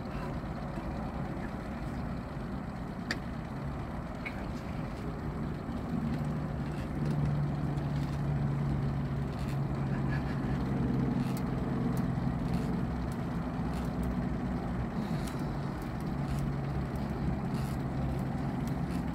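Boat motor running steadily, its note growing louder and fuller about six seconds in.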